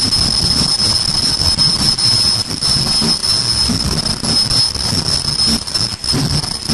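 Automatic face mask making machine running at speed: a steady mechanical din with a continuous high-pitched whine over a busy, uneven low clatter.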